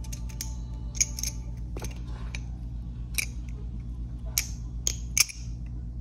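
Sharp metallic clicks of a balisong (butterfly knife): its handles and latch clack as it is pulled from its case and swung open. There are about eight separate clicks, the loudest a little past five seconds in, over a steady low hum.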